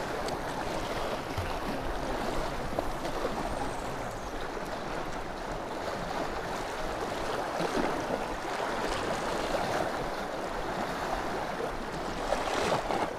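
Sea water washing and splashing around shoreline rocks, a steady wash that swells a little about eight seconds in and again near the end.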